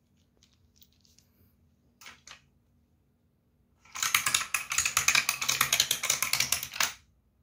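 Small toy car clattering down the zigzag ramps of a wooden tree-shaped click-clack track, a rapid run of clicks for about three seconds that stops abruptly as it reaches the bottom. A couple of light taps sound about two seconds in.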